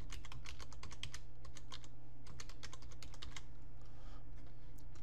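Computer keyboard typing, a quick run of keystrokes that thins out to a few scattered clicks about three and a half seconds in, over a steady low hum.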